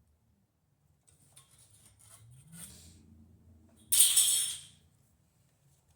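Light handling noises at a workbench: faint small taps and rustles, then a brief scraping, hissing noise about four seconds in.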